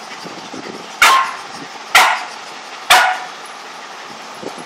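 A dog barking three times, about a second apart, each bark sharp and short.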